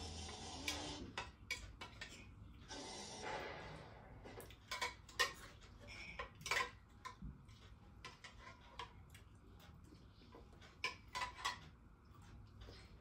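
Spoons clinking and scraping against bowls while people eat, in scattered short clinks that come thickest around the middle and again near the end.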